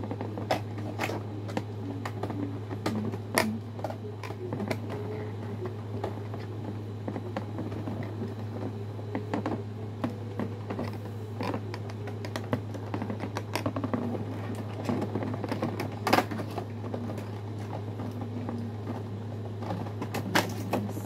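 Irregular clicks and taps of hands working on a toy robot's parts, the sharpest about three seconds in and again near the middle, over a steady low hum.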